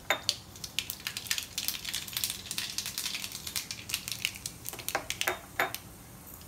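Mustard seeds popping and crackling in hot oil in a nonstick pan during tempering: a steady scatter of short, sharp pops, with a few heavier knocks about five seconds in.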